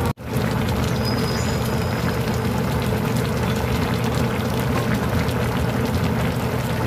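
Pork kimchi stew simmering hard in a wide pot, a dense crackle of small pops and bubbles over a steady low hum. The sound cuts out for a split second just after the start.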